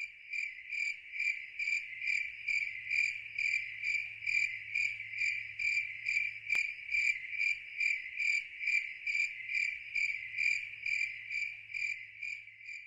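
A cricket chirping steadily, about two and a half high chirps a second, in an even unbroken rhythm.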